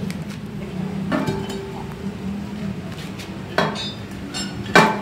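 Heavy steel brake drum and hub clanking as it is pulled off a truck's rear axle spindle and set down: three metallic clanks with a short ring, the loudest near the end.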